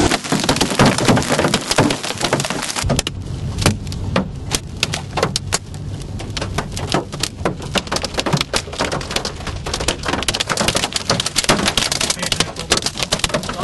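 Hailstones hitting a car's roof and windscreen in a severe hailstorm: a dense, irregular run of sharp knocks over a steady rush of rain and wind, the knocks standing out more clearly from about three seconds in.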